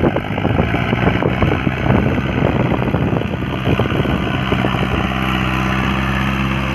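Diesel tractor engine running while a tractor on cage wheels puddles a flooded paddy field. The sound is rough and uneven at first and settles into a steady hum from about five seconds in.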